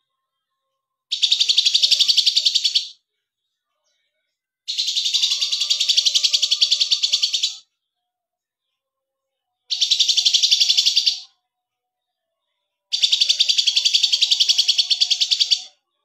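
A caged songbird singing in four bursts of rapid, evenly pulsed high trilling, each lasting about one and a half to three seconds, with short pauses between.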